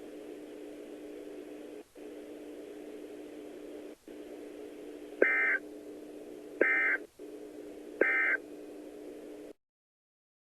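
Three short bursts of Emergency Alert System data tones, each about a third of a second long and about a second apart: the SAME end-of-message code that closes an alert broadcast. Under them, a steady low hum with brief dropouts, which cuts off near the end.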